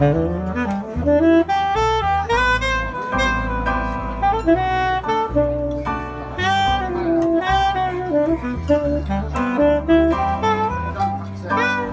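Live jazz trio playing an instrumental passage: a saxophone carries the melody over a Roland digital stage piano and an upright double bass.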